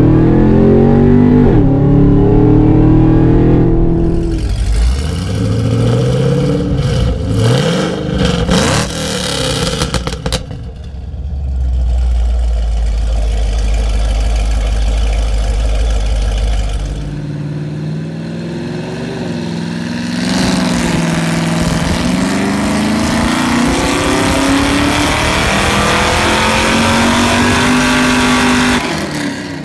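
2013 Chevrolet Camaro ZL1's supercharged 6.2-litre V8 heard through its exhaust in several clips. It accelerates hard with rising pitch, heard from inside the cabin. Later it idles with a deep, steady rumble, and near the end it makes a long full-throttle pull on a chassis dyno, its pitch climbing for about eight seconds.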